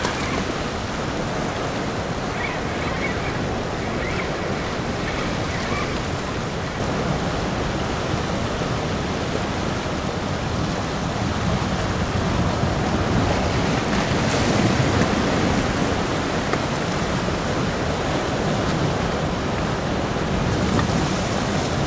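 Sea surf washing on rocks, with wind buffeting the microphone: a steady rushing noise.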